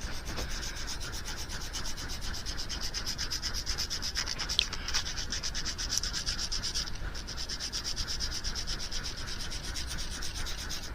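Dremel rotary tool sanding down the body of a hard plastic fishing lure: a steady sanding sound with a fast, even pulse.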